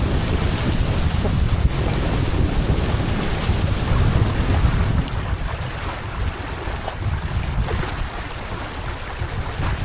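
Wind buffeting the microphone over the rush and splash of water along the hulls of a small beach catamaran sailing at speed; the rush eases a little about halfway through.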